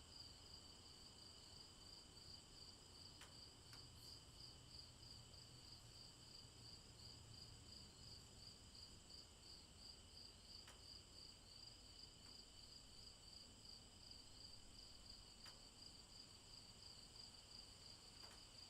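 Near silence, with a faint, steady cricket trill, rapidly pulsing and high-pitched, and a few faint ticks.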